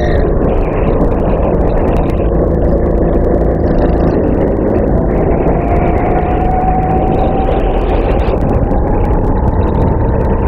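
Racing kart engine running under load on an onboard microphone, buried in heavy wind rumble. Over the second half the engine note climbs steadily as the kart accelerates.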